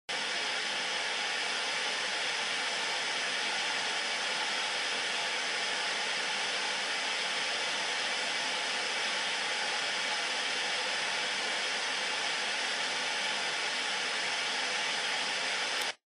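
Static hiss of an old analog television showing snow with no signal: steady white noise that starts abruptly and cuts off suddenly near the end.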